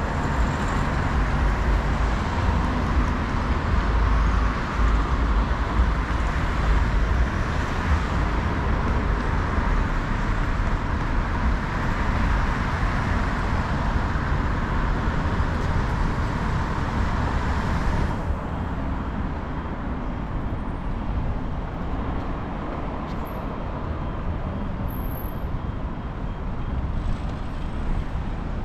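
Street traffic noise: a steady wash of passing cars with a low rumble, which turns quieter and duller about two-thirds of the way through.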